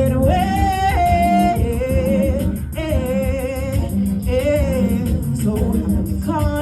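Music: a singer holding long, wavering notes without words over a steady beat.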